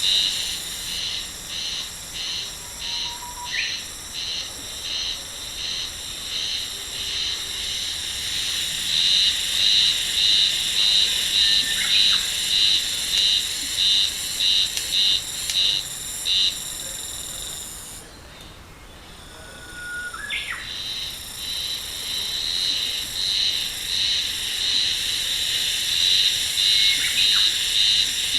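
An insect calling loudly in a shrill pulsing rhythm, about two pulses a second. It breaks off about two-thirds of the way through, then builds back up and carries on.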